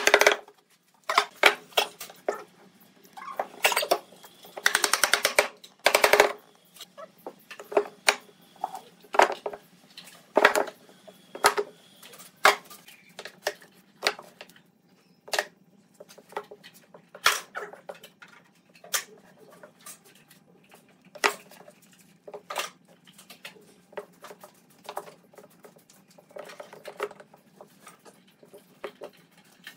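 Sandpaper rubbed by hand over a rough wooden block. There are quick runs of back-and-forth strokes in the first few seconds, then single rubbing strokes about a second apart.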